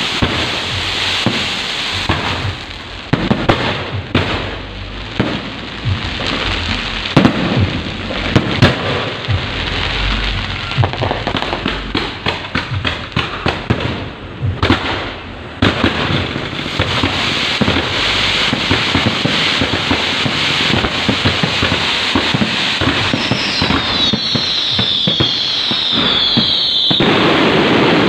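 Electrically fired fireworks and firecrackers going off in a dense, irregular barrage of crackles and pops. Near the end, a cluster of falling whistles sounds for a few seconds and then cuts off suddenly.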